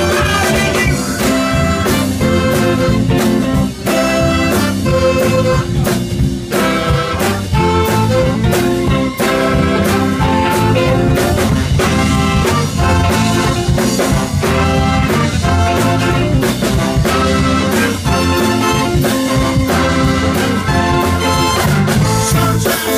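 Live blues band with a horn section of trumpet and saxophones, drums and keyboard playing an up-tempo number with a steady beat, heard through a PA.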